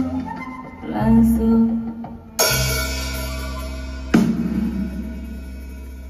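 A live band with a drum kit plays the closing chords of a song. There are two heavy crash-cymbal hits with the full band, about two and a half and about four seconds in, and the last chord rings on and slowly fades.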